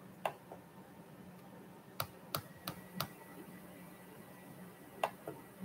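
Scattered sharp clicks over a faint steady hum: a pair near the start, four in quick succession about two to three seconds in, and another pair near the end.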